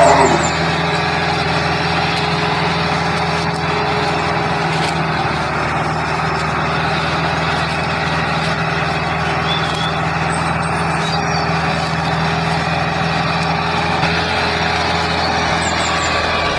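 Tractor engine running at a steady speed, an even low drone that does not rise or fall.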